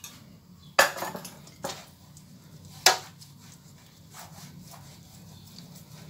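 Kitchen cookware clanking: three sharp knocks, the middle one lighter, around the greasing of a metal baking tray with ghee.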